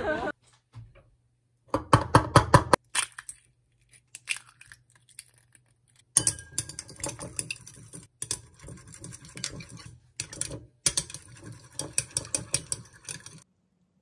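Metal chopsticks beating raw eggs in a ceramic bowl, clicking quickly against the sides in three bursts. A shorter cluster of clinks and taps comes about two seconds in.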